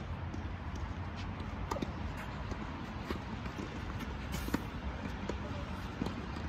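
Tennis ball struck by racquets and bouncing on the court during a rally: scattered sharp pocks, the loudest about four and a half seconds in, over a steady low background noise.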